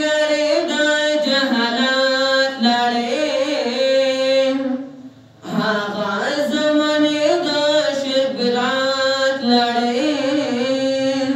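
A man chanting a Pashto nazam, a devotional poem, with no accompaniment, in two long melodic phrases with a short breath pause about five seconds in.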